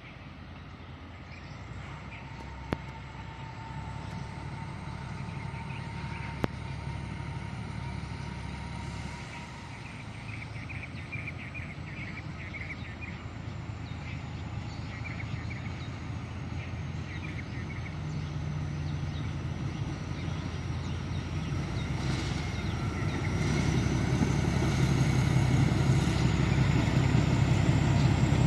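Narrow-gauge diesel train approaching, its engine rumble growing steadily louder, with a steady low engine hum coming in about two-thirds of the way through. Two short clicks sound within the first seven seconds.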